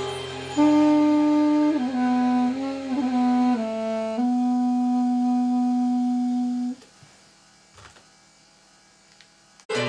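Armenian apricot-wood duduk playing a slow melody by ear, moving through several notes before settling on one long held note that stops about two-thirds of the way in. A low steady tone sounds underneath for the first few seconds, and the rest is quiet.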